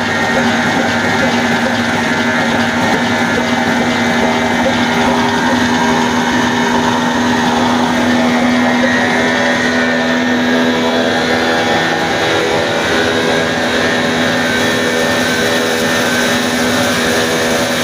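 Old heavy stationary diesel engine running steadily, its large flywheel driving belts and a line shaft that power a flour-mill grinder. A steady hum runs over the noise of the machinery and fades about two-thirds of the way through.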